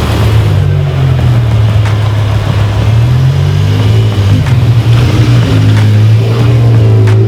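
BMW M6's V10 engine and exhaust running loud, its pitch holding fairly steady with small rises and dips.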